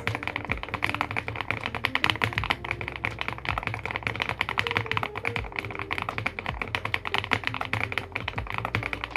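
Fast, continuous typing on a WEIKAV MAX102 aluminium-cased mechanical keyboard, many key clicks a second, with background music underneath.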